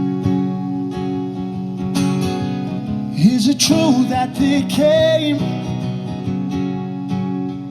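Live song intro: an acoustic guitar strummed steadily, with a short sung phrase about three seconds in that lasts around two seconds.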